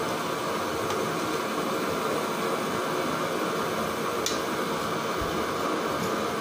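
Steady, even noise, with a faint click about four seconds in and another near the end, as a steel ladle stirs masala-coated chicken pieces in a pot.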